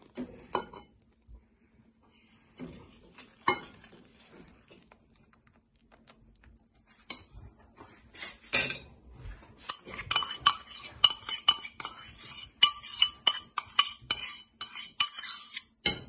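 Wire whisk clinking against a glass mixing bowl while mixing melted butter into flour: a few scattered taps at first, then quick, steady clinking from about ten seconds in.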